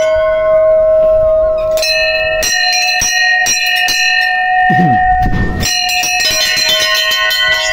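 Brass Hindu temple bells rung by hand, struck again and again about twice a second so that their ringing tones overlap and sustain.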